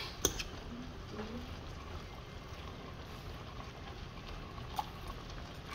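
Fish and vegetables simmering in coconut milk in a skillet: a faint, steady bubbling hiss. A sharp light knock comes just after the start, and a fainter tick near the end.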